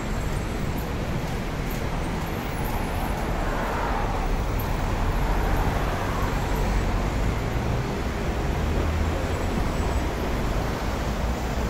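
Road traffic running on the multi-lane road below: a steady rumble of cars and buses. It swells a little louder for a couple of seconds near the middle as a vehicle passes.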